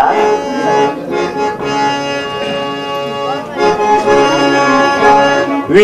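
Harmonium playing a melodic interlude of held notes and chords that change every second or so.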